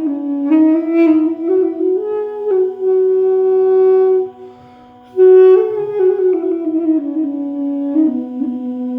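Duduk in key H (B) playing a slow melody of held and stepped notes over a steady low drone. The melody breaks off for about a second near the middle, then comes back loudest on a high note and steps down.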